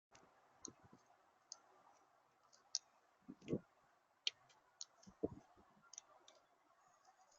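Faint, irregular sharp clicks and taps, with two duller knocks about three and a half and five seconds in.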